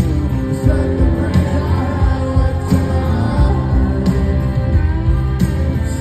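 Live rock band playing through a big PA, heard from within the crowd: electric guitar, keyboards and drums with a steady beat, sung over.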